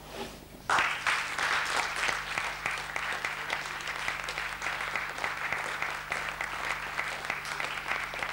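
Audience applauding. It breaks out suddenly a moment in, after a hush, and goes on steadily as a dense patter of many hands.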